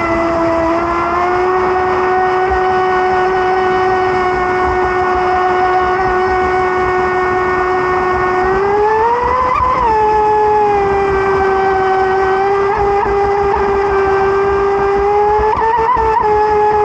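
RC boat's motor running with a steady high-pitched whine, its pitch rising to a peak about ten seconds in, then settling back.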